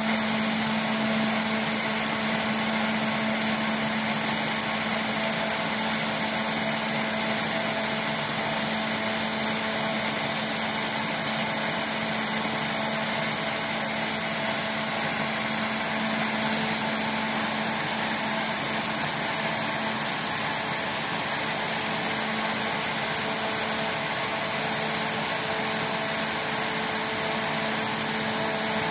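Supersnow fan snow gun running: a steady hum from the machine under a loud, even hiss of water and air spraying from its nozzle ring.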